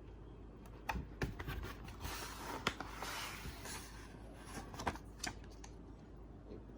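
Vinyl record packaging handled by hand: rustling and rubbing with a handful of sharp clicks and taps, and a longer stretch of rustling in the middle.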